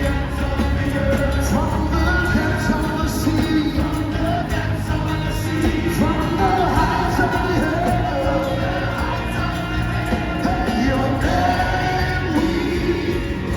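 Live worship music with singing over a steady bass, played loud and without a break.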